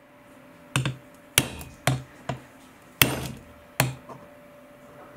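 Claw hammer striking the end of a chisel wedged into a resin-bonded carbon fibre moulding, trying to break the stuck side off. Six sharp blows land in about three seconds, unevenly spaced.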